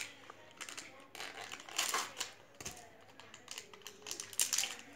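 Small plastic accessory packet crinkling and rustling as it is torn open and handled, with scattered light clicks; the loudest rustles come about two seconds in and again near the end.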